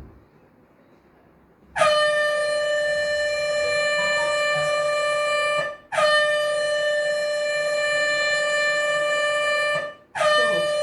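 Air horn sounded in long steady blasts: the first starts about two seconds in, the second follows after a brief break, each lasting about four seconds, and a third begins shortly before the end.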